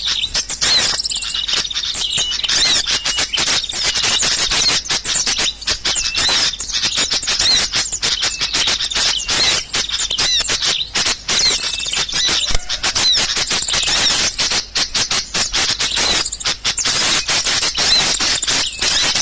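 Bird-lure call for small birds: a dense, continuous chatter of many small birds chirping and twittering over one another, with rapid clicking calls and short repeated whistled notes.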